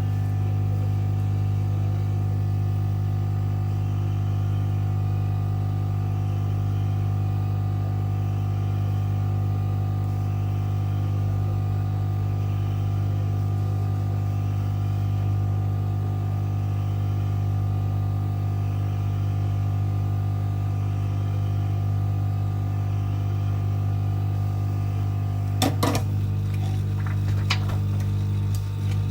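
Heat gun running with a steady electrical hum while reheating the phone. A few sharp clicks come near the end.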